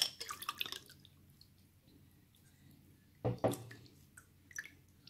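Wet gelatin and nata de coco cubes being handled in a glass bowl: a sharp click at the start, a brief run of squelchy clicks, then a louder thump about three seconds in.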